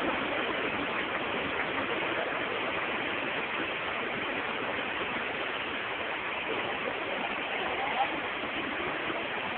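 Rain falling steadily, an even hiss with no let-up, with faint voices in the background.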